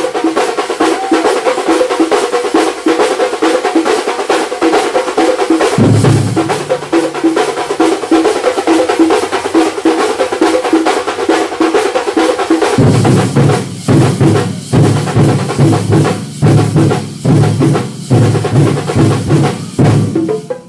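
Thambolam street percussion band playing a fast, loud, continuous beat on stick-played drums. Deep bass drum strokes come in briefly about six seconds in and then run steadily from about thirteen seconds, with the higher strokes breaking off in short rhythmic gaps after that.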